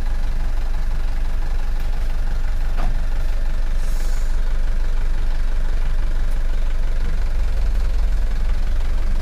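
Diesel engine of a loaded dump truck running steadily at low revs as the truck creeps forward. A brief hiss about four seconds in.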